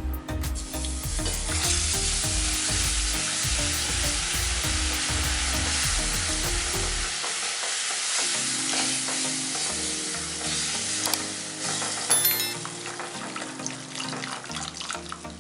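Jaggery water hitting hot ghee-roasted wheat flour in a pan, sizzling loudly as it is poured in and stirred; the sizzle eases after about ten seconds.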